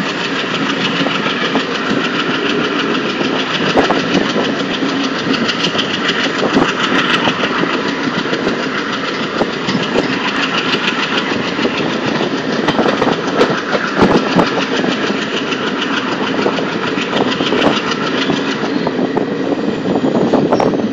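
Passenger express train on the move: a steady running rumble with frequent, irregular clicks and knocks. The brighter upper part of the noise fades near the end.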